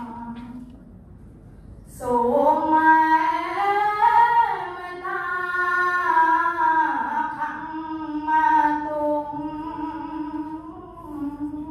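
A single young voice chanting Khmer verse in a sung, melodic recitation without accompaniment, holding long notes that slide slowly in pitch; it pauses briefly near the start and resumes about two seconds in.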